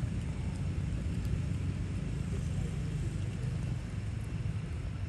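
A steady low rumble with no clear pitch, typical of distant traffic or engine noise.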